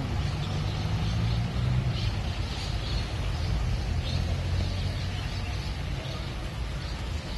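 Steady low rumble and hiss of wind buffeting the microphone, with faint short bird chirps now and then.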